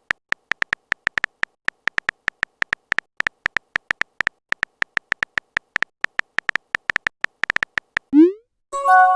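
Phone keyboard typing sound effect: rapid irregular clicks, about four to five a second. Near the end a short rising swoosh and then a brief chime of a few steady tones, like a messenger app's message-sent and message-received alerts.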